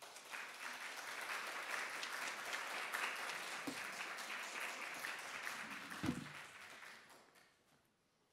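Audience applause after a lecture: steady clapping for about seven seconds that dies away near the end, with a brief low thump about six seconds in.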